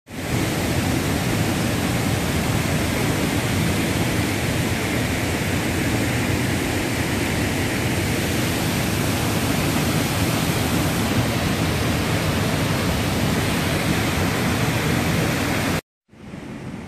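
Rushing water of the Moho River's rapids, a steady loud hiss of whitewater that cuts off abruptly near the end.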